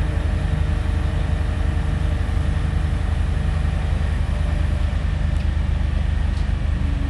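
Diesel engine of heavy site plant idling steadily, a low, even rumble.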